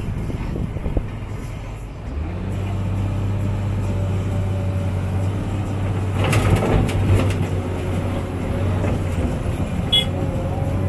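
Cat 325D excavator's diesel engine and hydraulics running steadily under load, heard from inside the cab, picking up about two seconds in. About six seconds in comes a burst of clatter as the bucket dumps earth into the dump trailer below, and a short sharp click near the end.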